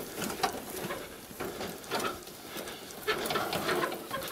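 Wooden handcart rattling and knocking as it is pushed over rough grassy ground, with irregular clatter that thickens about three seconds in.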